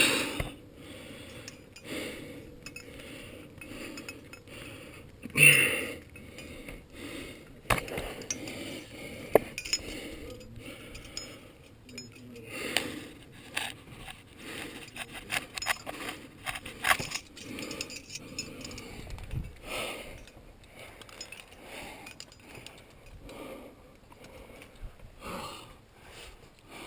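Metal climbing gear clinking and jangling on a climber's harness as the climber moves up a rock crack, mixed with scrapes against the rock. The sound comes as scattered short clicks, with a louder burst about five and a half seconds in.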